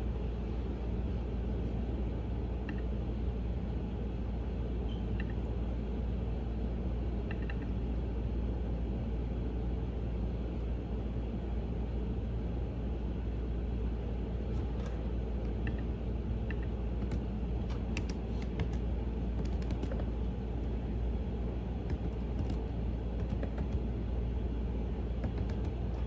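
Computer keyboard typing: a few scattered key clicks, coming more often about halfway through, over a steady low rumble.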